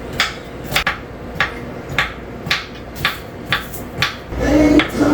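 Knife chopping on a cutting board, regular sharp knocks about two a second. Background music comes in near the end.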